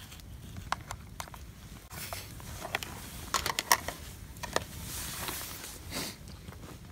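A spoon scraping and clicking against an aluminium mess tin while rice is scooped out, with a cluster of light clicks about halfway through.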